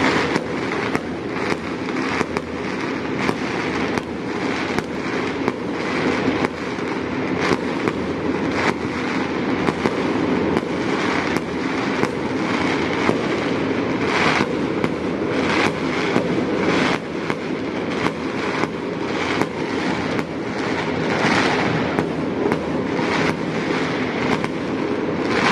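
Fireworks going off without pause: sharp bangs, irregular and about one or two a second, over a continuous rumble of bursts.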